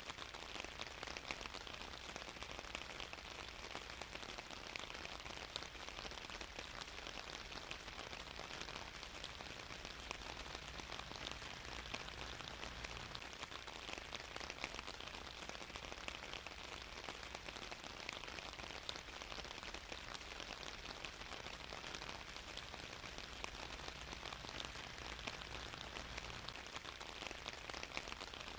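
Steady rain falling, dense patter of drops on a surface.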